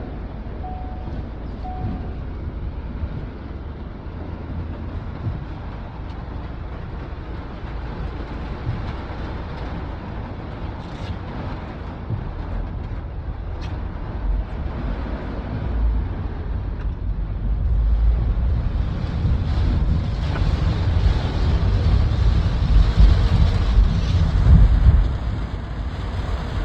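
Steady rain over city street noise, with a deep low rumble that builds through the second half and peaks near the end. A few short beeps sound in the first two seconds.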